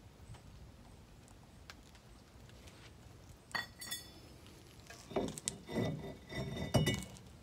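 Metal parts clinking and ringing: one sharp clink about three and a half seconds in, then a run of clunks with ringing as the brake rotor is handled on the hub.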